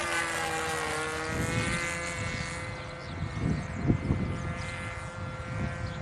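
Super Kaos RC model airplane's engine and propeller whining in flight. Its pitch drops in the first second as the plane passes, then holds steady. Wind gusts buffet the microphone from about a second in.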